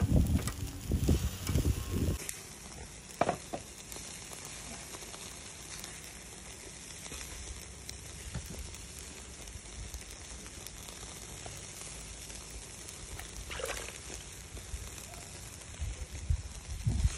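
Low rumbling and knocks for about two seconds, then a steady sizzle of food frying in a pan, with a couple of faint clicks.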